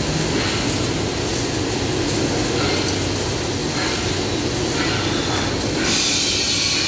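Large industrial drum fan running: a steady rushing hum that turns hissier about six seconds in.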